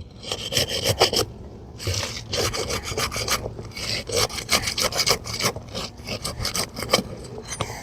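A thin flat bar being worked along under an asphalt roof shingle, cutting through the tar sealant line to unseal it: a run of scraping strokes with crackling ticks and brief pauses between them.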